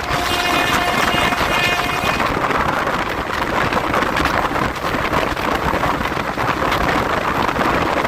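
WAP-4 electric locomotive's dual-tone horn holding one steady note for about two seconds, then the loud, continuous rushing noise of the fast-moving train.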